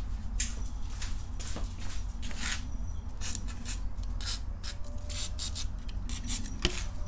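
WD-40 aerosol can spraying through its straw in a quick series of short hisses: penetrating oil going onto the motorcycle's 8 mm valve cover bolts to free them before they are undone.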